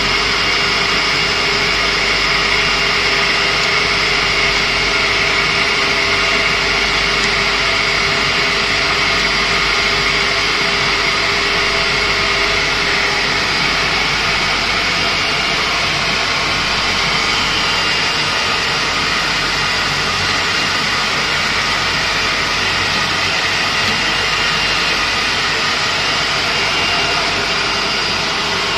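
Digital flatbed knife cutting machine running while it cuts a clear plastic sheet: a steady machine drone with a few constant high tones, and a lower tone that drops out about halfway through.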